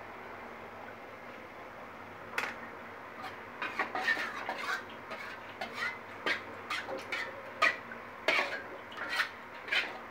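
Metal spatula scraping and clinking against a metal wok, spreading cooking oil around the pan as it heats. Irregular strokes start about two seconds in over a faint steady hiss.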